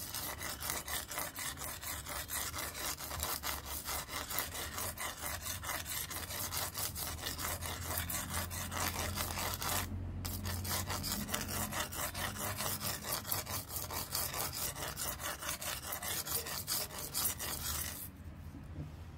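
A handheld sharpener's black 180-grit abrasive sheet rasping back and forth along a steel kitchen-knife blade in rapid strokes, several a second. The strokes pause briefly about halfway through and stop about a second before the end.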